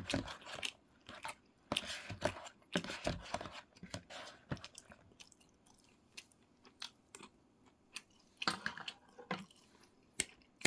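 Close-miked mukbang eating sounds: food being chewed and crunched with wet mouth clicks. The chewing is dense for the first few seconds, thins to scattered clicks, then picks up briefly again later on.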